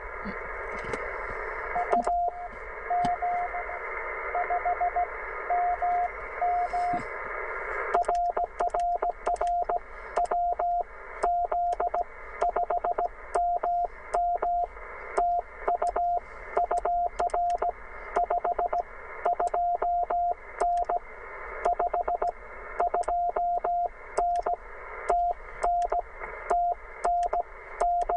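Morse code (CW) from the Penntek TR45L HF transceiver's speaker: a keyed tone of dits and dahs over steady band hiss. The keying is sparse at first and from about 8 seconds in becomes steady and continuous, the hiss dropping out between the elements.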